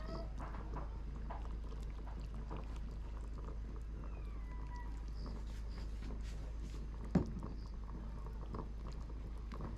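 A metal ladle dipping into and scooping from a stockpot of simmering pho beef-bone broth: soft liquid sloshes and light clinks, with one sharp knock of the ladle against the pot about seven seconds in.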